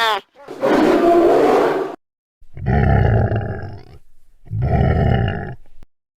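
Three deep, drawn-out animal-like roars in a row, each lasting about one to one and a half seconds with a short pause between them.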